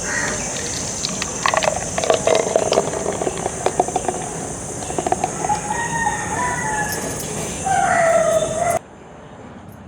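Chickens clucking, with a drawn-out rooster crow near the end, over a steady high hiss. The sound drops off suddenly just before the end.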